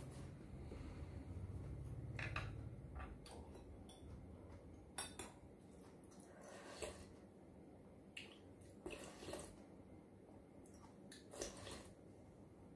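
Metal spoon clinking and scraping against a ceramic soup bowl: a scattering of faint, irregular clinks.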